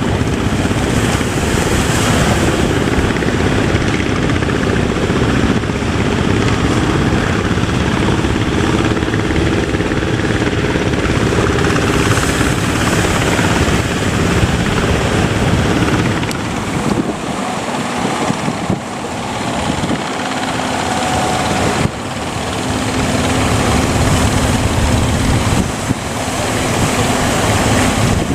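Boat engine running steadily under wind and water noise, its sound dipping and wavering for a few seconds about two-thirds of the way through.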